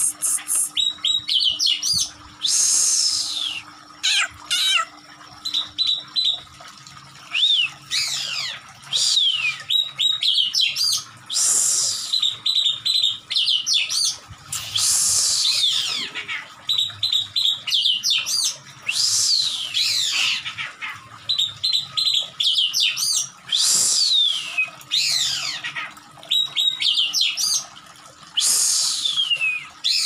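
Caged oriental magpie-robin (kacer) calling in an agitated, aggressive state: loud calls that sweep steeply down in pitch come every couple of seconds, with quick runs of short repeated notes between them.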